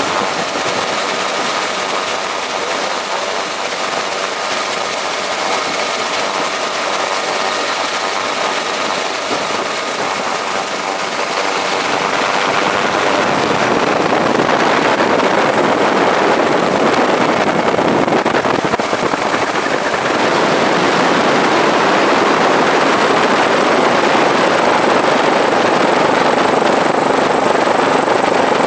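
A helicopter's engine and rotor noise heard from aboard: steady noise with a thin, high turbine whine that holds throughout, growing a little louder about halfway through.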